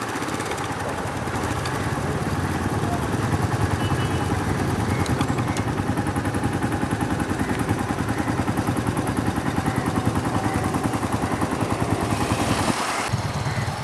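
Motorcycle engine running steadily, with a fast, even pulse; the sound breaks off abruptly near the end.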